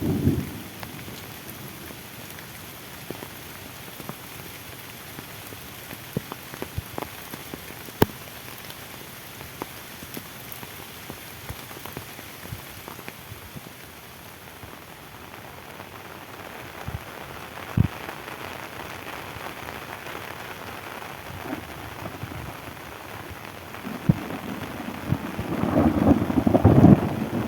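Steady rain falling, with single drops ticking sharply close by. A low thunder rumble fades out at the start and another builds up loudly near the end.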